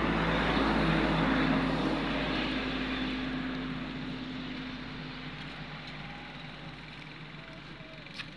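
An engine droning steadily, loudest about a second in and then slowly fading away.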